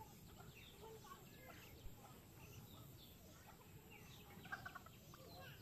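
Near silence: faint outdoor ambience with scattered small bird chirps.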